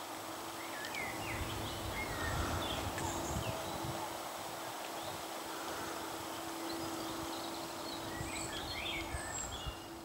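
Blackcap singing two quick warbling phrases, one about a second in and another near the end, over a low rumble and a faint steady hum.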